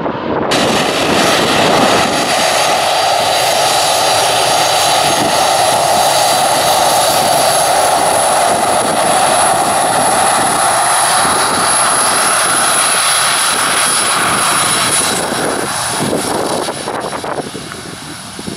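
Boeing 737's CFM56 turbofan engines running at taxi power close by: a loud, steady jet whine with thin high-pitched tones over a noisy rush. It eases off near the end as the aircraft moves past.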